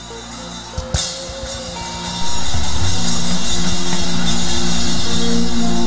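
Church praise band playing with a full drum kit, cymbals washing over sustained keyboard and bass notes; about two seconds in the music jumps to a much louder, steady level.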